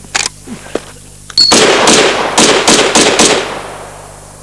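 Czech Vz. 58 assault rifle firing a quick string of about six 7.62×39 mm shots, the reports running together for about two seconds and then dying away. A few light clicks come about a second before the first shot.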